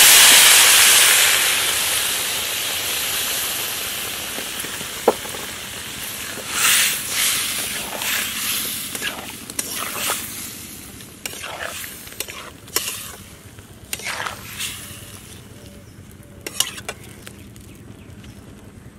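Loud sizzle as water is poured onto hot oil and spices in a metal karahi, dying away over the first several seconds as the water heats. Then a metal spatula stirs and scrapes the curry against the pan in a series of short strokes.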